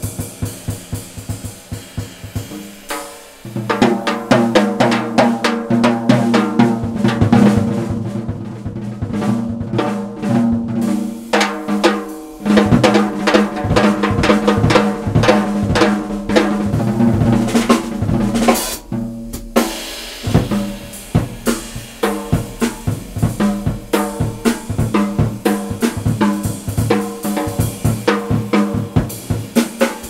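Jazz drum-kit solo: dense, rolling figures across snare, toms and bass drum under ride and crash cymbals. There is a short dip about three seconds in, and a cymbal crash a little past halfway followed by a brief lull before the playing picks up again.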